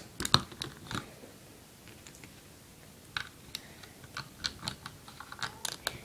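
Plastic Lego bricks clicking as they are handled and pressed onto a brick build. Scattered small sharp clicks come in a cluster at the start, pause for about a second and a half, then pick up again and run on more often toward the end.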